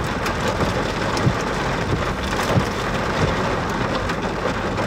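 Rain hitting the roof and windshield of a vehicle: a steady hiss full of small taps, with a few heavier hits.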